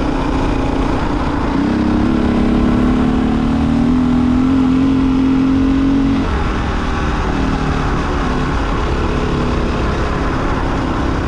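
Honda XR600R dirt bike's air-cooled single-cylinder four-stroke engine running under way. Its pitch rises about two seconds in as the throttle opens, holds, then falls about six seconds in as the rider backs off. Wind rumbles on the microphone throughout.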